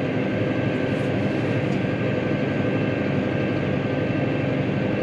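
Tractor engine running steadily under load while ploughing, a dense even drone with a constant high whine over it.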